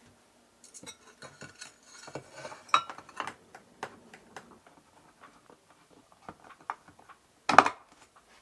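Light metallic clicks, taps and small rattles as a screwdriver drives small screws into a thin aluminum cover bracket, with one louder sharp knock near the end.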